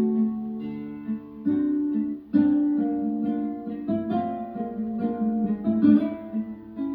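Guitar music: plucked notes, several ringing together, each note starting sharply and fading.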